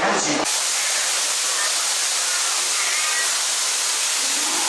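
Steady rush of falling water, an even hiss with no low rumble, starting abruptly about half a second in.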